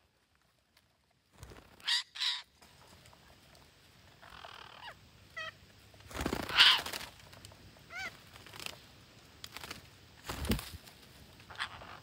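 Parakeets calling: scattered harsh calls and short chirps in a flock, starting after about a second and a half of silence, with the loudest call about halfway through.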